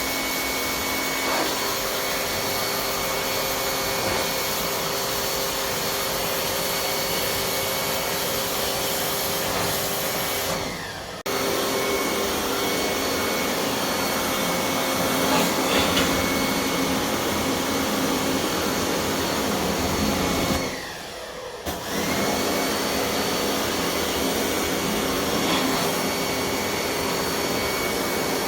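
Electric high-pressure washer running steadily while spraying water to clean a ceiling-mounted cassette air conditioner, its motor whining over a steady rush of noise. Twice, about ten and twenty seconds in, the motor winds down and stops briefly, then starts up again.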